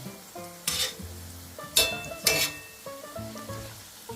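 Chicken patties sizzling in oil in a frying pan, with a utensil scraping or knocking against the pan three times, over background music.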